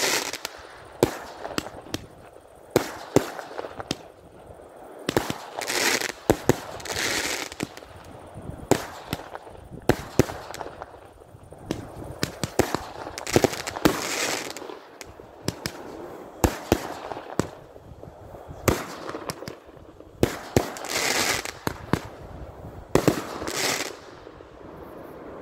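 Roman candles firing shot after shot: sharp bangs, often a second or so apart, with several spells of crackling about a second long as the shots burst in the sky.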